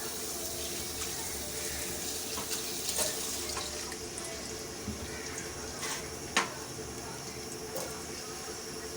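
Onions frying in a pot of hot oil: a steady sizzling hiss, with a few sharp clicks about three and six seconds in.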